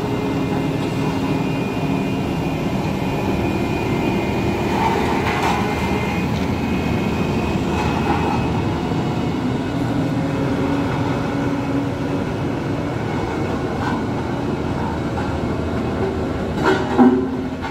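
Heavy truck diesel engine running steadily under load, with a short louder burst near the end.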